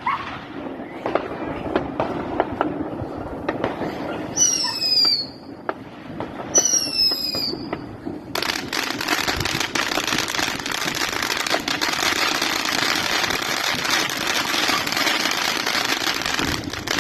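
Fireworks: scattered bangs, then two falling whistles from whistling fireworks about four and six seconds in. About eight seconds in, a dense continuous hissing crackle starts and lasts until shortly before the end.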